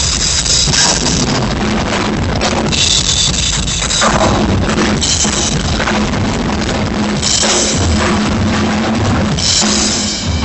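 Drum kit played live: driving bass drum and snare with repeated cymbal crashes about every two seconds.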